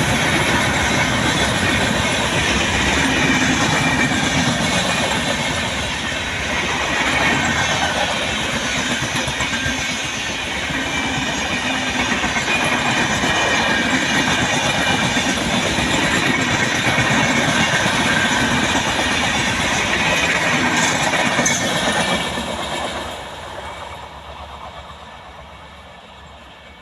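An Indian express train running past at speed, its coaches rattling and clattering over the rails. The sound is loud and steady, then dies away over the last few seconds as the train recedes.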